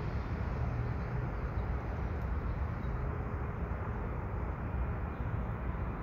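Steady low rumble of outdoor background noise with no distinct events, and a faint steady hum in the middle.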